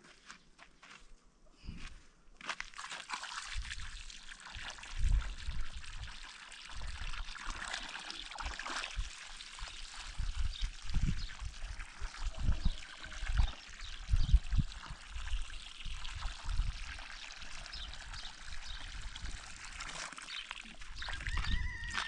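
Water poured steadily from a plastic bucket into a hollow in a pile of sand and cement, splashing as the dry mix is wetted for mortar, with scattered low thumps.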